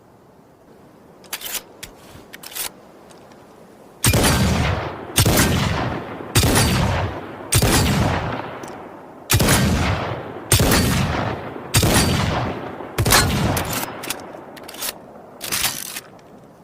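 Revolver gunshot sound effect: a few light clicks, then about ten loud shots roughly a second apart, each trailing off in a long echo, the last few weaker.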